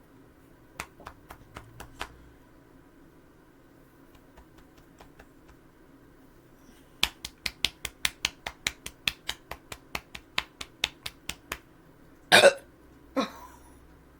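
A person gulping a drink in quick swallows, about four a second for some four seconds. Then comes one short, loud burst from the throat and a weaker one just after.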